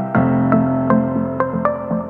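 Background music: a calm new-age style track with held chords under a steady pattern of light struck notes, about three to four a second, the chord changing shortly after the start.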